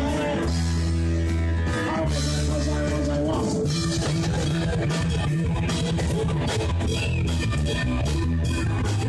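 Live rock band playing an instrumental passage: electric guitars over bass and a drum kit keeping a steady beat, with no singing.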